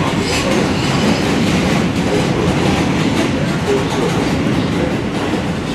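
R160 subway train running between stations, heard from inside the car: a steady loud rumble of wheels on rail with light clicking over the rail joints.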